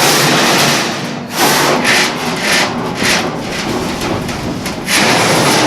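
A large 18-gauge steel floor panel being slid and dragged across metal, scraping in several rough strokes.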